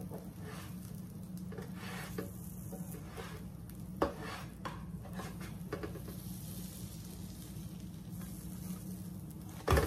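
Butter and oil sizzling under a grilled cheese sandwich frying in a nonstick pan, over a low steady hum, with a spatula scraping and tapping against the pan. A sharp knock comes about four seconds in and a louder one near the end, as the sandwich is turned over.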